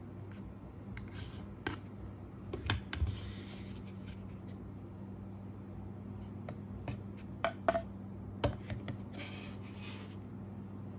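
Smartphones being handled and turned around in wooden stands: scattered light clicks and short sliding rubs, over a low steady hum.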